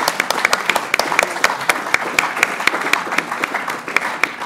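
Audience applauding: a dense, steady patter of many people clapping that starts to thin out near the end.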